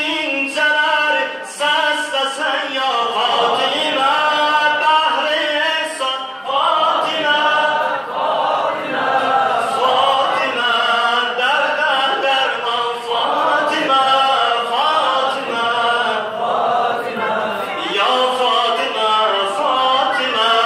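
A man singing an unaccompanied Azerbaijani mövlud, a devotional hymn, into a microphone, in a flowing, ornamented melody with short breaks between phrases.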